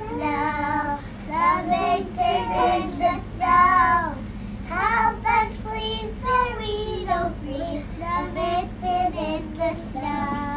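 Young children singing a song, their voices high and sustained on the held notes.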